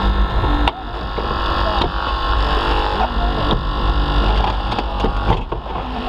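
Hydraulic rescue-tool power unit running steadily, with a few sharp knocks.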